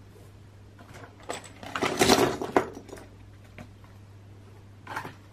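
Small hard plastic Playmobil figure parts tipped out of their foil pouch, rattling and clattering onto a tabletop in a quick flurry about two seconds in, with a lighter clack near the end.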